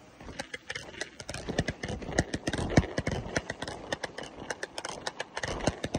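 Footsteps crunching on a loose gravel and dirt floor: quick, irregular crunches starting about half a second in.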